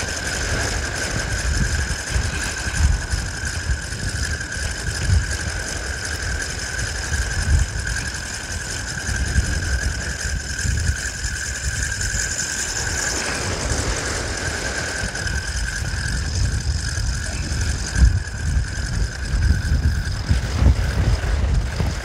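Wind buffeting the microphone in uneven gusts, a low rumble, with a steady high-pitched whine running through it.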